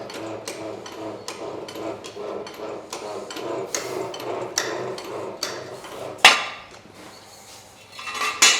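Repeated sharp taps and clicks of tools or metal parts, roughly two to three a second, over a steady mechanical hum. The hum stops with one loud knock about six seconds in.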